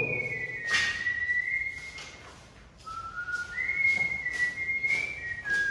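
A person whistling a slow tune: long held notes that step between a few pitches. Several short hissy noises come in between.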